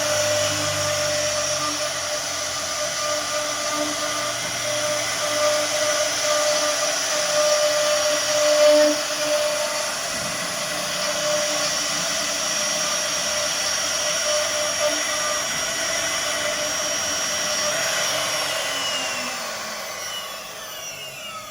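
CNC router spindle running with a steady high-pitched whine, then spinning down near the end, its pitch falling as it slows.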